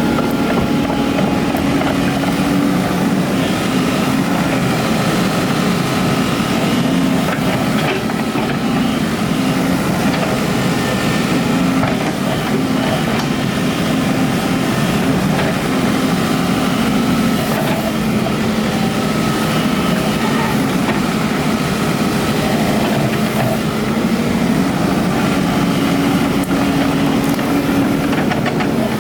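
Excavator's diesel engine running steadily, its pitch dipping and rising now and then.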